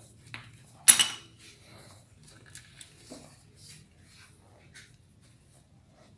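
Metal hand tools and motorcycle exhaust mounting hardware clinking: one sharp clank about a second in, then scattered light clicks and taps.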